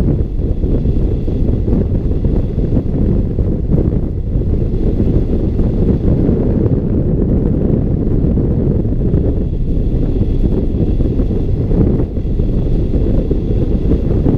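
Steady, loud rush of airflow buffeting the microphone of a wing-mounted camera on a hang glider in flight, a low rumbling wind noise.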